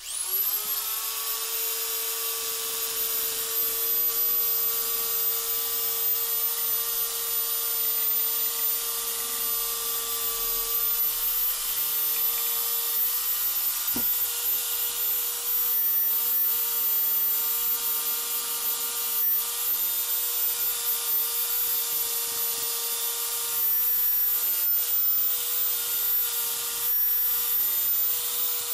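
Chicago Electric finger sander switched on, its motor spinning up to speed in under a second, then running steadily with a hum and a high whine while its narrow belt sands a small wooden carving with a dense rasping hiss.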